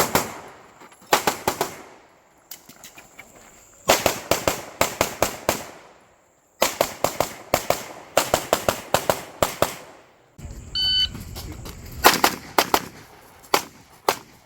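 Rapid strings of gunshots, several shots a second in bursts, from a practical shooting competition stage. About eleven seconds in, a short electronic shot-timer beep comes just before another fast string of shots.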